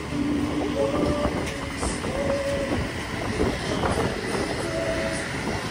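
Line hauler pulling in a longline mainline during haul-back: a steady mechanical rumble with dense clattering and brief squeaks at several pitches.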